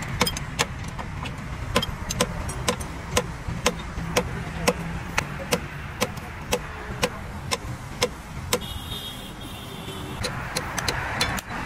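A steady low engine rumble from a running vehicle, with sharp, evenly spaced clicks or knocks about twice a second over it.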